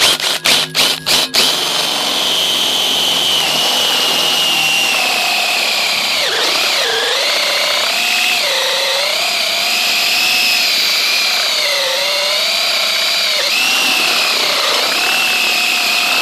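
Electric drill boring out mounting holes in a gate keypad pedestal: several short trigger blips, then a long continuous run whose pitch sags and wavers as the bit bites, cutting off at the end.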